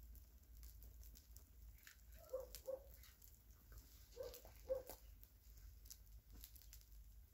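Near silence: faint crackling and a few sharp pops from a burning heap of matches. Twice, about two seconds apart, a pair of short calls from an animal.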